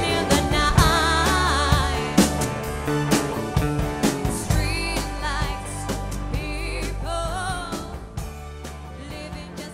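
A band playing a pop-rock song: singing with vibrato over drums and bass, gradually getting quieter.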